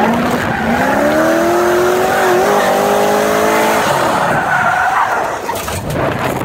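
Drift car sliding sideways, heard from inside the cabin: the engine's revs drop at the start, climb steadily for about three seconds, dip near four seconds in and rise again, over the rush and squeal of tyres spinning and sliding.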